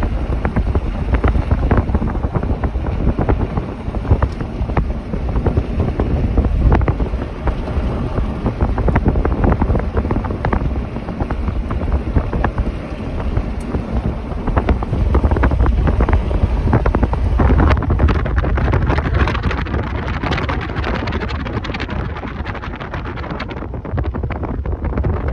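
Strong wind buffeting the microphone: loud, uneven rumbling noise heavy in the low end, turning brighter and hissier in the last third.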